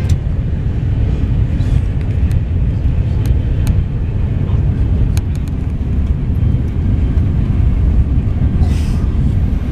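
Passenger train running: a steady low rumble with a few faint clicks.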